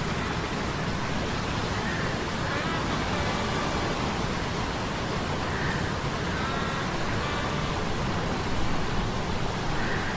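Sea-storm sound effects: a steady, dense rush of wind, rain and surf, with faint short whining tones sliding in pitch every second or two over it.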